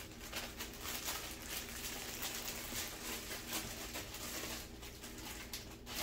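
Faint rustling and light tapping of a plastic bag being handled as kitchen tongs are worked out of it.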